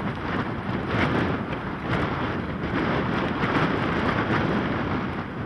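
Wind buffeting the microphone in gusts, a loud rumbling rush that swells and eases every second or so.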